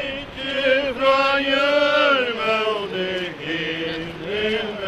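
Mourners singing a slow hymn unaccompanied, with long held notes gliding from one pitch to the next.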